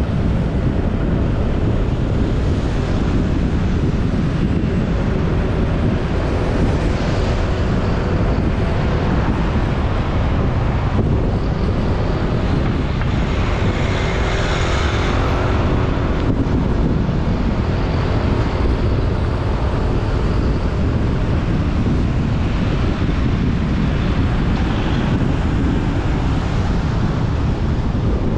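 Wind buffeting a microphone on a moving motorcycle, a steady loud rush, over the motorcycle's engine running beneath it. The engine's pitch shifts briefly about halfway through.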